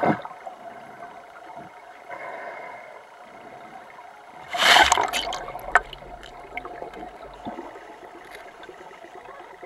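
Muffled underwater gurgling and sloshing picked up by a camera held beneath the surface, with scattered small clicks and a louder rushing burst of water about halfway through.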